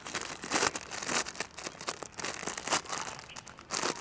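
Thin polythene bag crinkling in irregular bursts as it is handled and bound over a graft.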